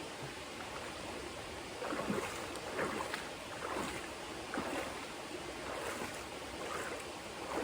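Someone wading through a shallow stream: the water sloshes and splashes with each step every second or so, starting about two seconds in, over the steady rush of flowing water.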